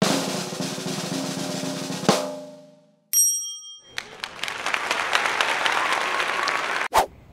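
Drum roll sound effect ending in a sharp hit, then a bright chime about a second later. A few seconds of crackly noise follow and end in another sharp hit.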